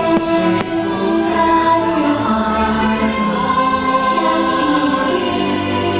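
Fireworks show soundtrack: music with a choir singing long held notes, with a few faint crackles of fireworks bursting.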